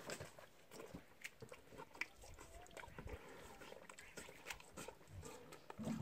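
Water buffaloes eating wet feed mash from metal bowls: faint, irregular chewing and crunching with scattered small clicks.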